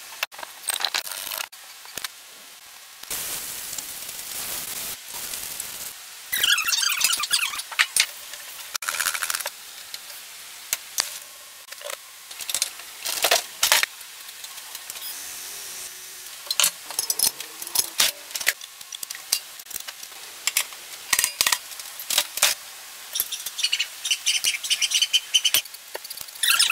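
Metal engine parts being handled and fitted by hand: a run of clinks, taps and scrapes, with a stretch of hissing noise about three to six seconds in.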